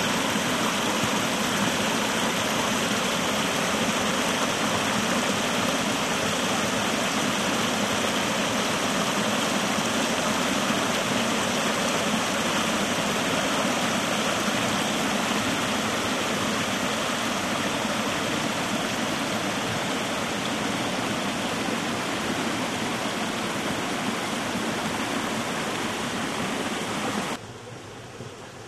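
Small woodland brook splashing over rock ledges in little cascades: a steady rush of water. Near the end it drops away abruptly to a faint hiss.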